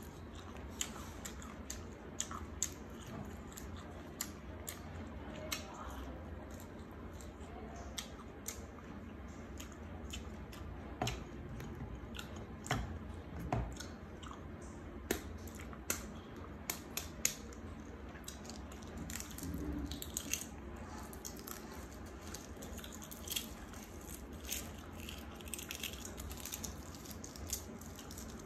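Close-up eating sounds: chewing with wet mouth noises, and grilled eggs being cracked against a wooden cutting board and peeled, a run of small sharp clicks and crackles from the shell.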